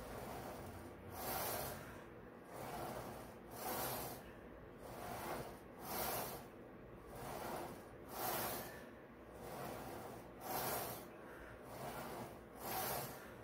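A person's heavy, rhythmic breathing under exertion, a breathy hiss swelling in and out about every second and a bit, in time with the repetitions of a one-leg leg press.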